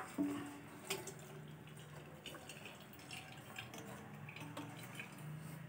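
Cooked chana dal and its cooking water pouring from a pressure cooker into a steel mesh strainer, the water trickling and dripping through the mesh, with a light knock near the start and small clicks throughout.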